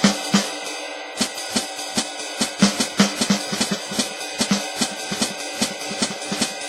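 Alesis DM10 electronic drum kit being played in a steady groove: a quick run of kick and snare hits over hi-hat and cymbal sounds from the module.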